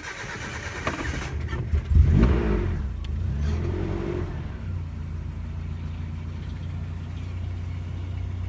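The 1988 Nissan Urvan campervan's Z-series petrol engine is started. The starter cranks for about a second and a half, the engine catches about two seconds in with a rev, revs briefly again a little later, then settles into a steady idle.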